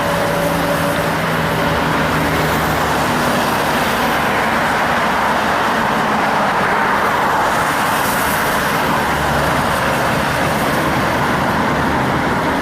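Steady traffic noise of heavy trucks and other vehicles passing on a highway: tyre and road noise with a truck engine's drone that fades away in the first couple of seconds.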